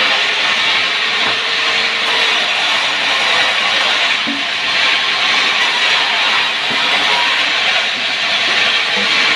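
Powered wood saw cutting through timber: a steady, loud hissing noise that does not let up.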